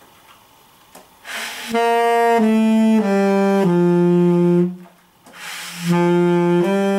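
Tenor saxophone playing four slurred notes stepping down, fingered do, si, la, sol (sounding B-flat, A, G, F), each held about half a second, after a quick intake of breath. After another breath the same notes begin climbing back up, with two sounded by the end.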